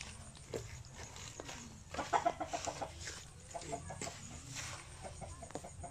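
A hen clucking in short runs of quick repeated notes, about two seconds in and twice more later. A steel trowel scrapes faintly through wet cement mix underneath.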